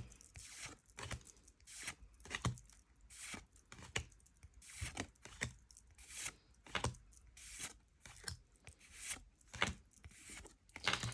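Booster-pack foil wrapper and trading cards being handled: a string of short crinkles, swishes and flicks as a pack is torn open and its cards are slid one by one off the stack.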